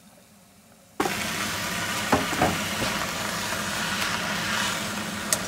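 Leafy greens sizzling in hot oil in a nonstick frying pan as they are stirred with a spatula, with a few light knocks. The sizzle starts suddenly about a second in, after a quiet moment.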